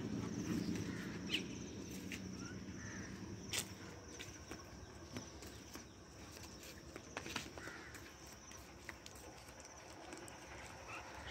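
Quiet roadside ambience: scattered faint bird chirps over a steady high insect trill, with a few sharp clicks. A low rumble fades over the first two seconds.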